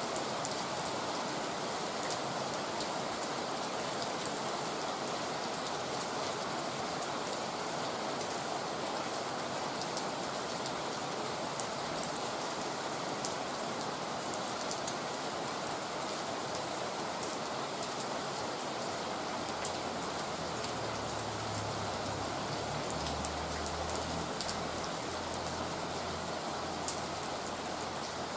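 Heavy rain falling steadily, with scattered sharper drop hits.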